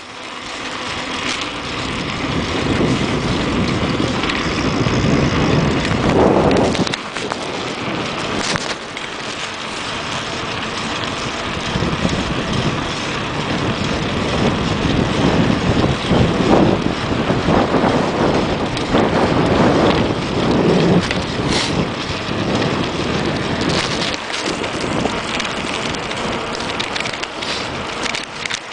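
Wind blowing across the microphone of a camera riding on a moving bicycle: a steady rough rush that swells and eases in gusts.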